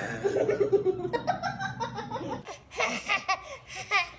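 Laughter in short, repeated pitched bursts, with high baby giggles among it.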